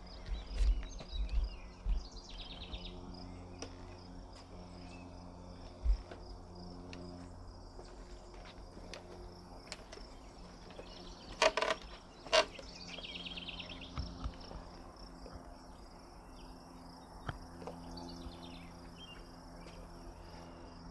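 Outdoor summer ambience of insects chirring steadily and songbirds calling, with two louder bird calls about eleven and twelve seconds in. A few low thumps of wind on the microphone come near the start and again about six seconds in.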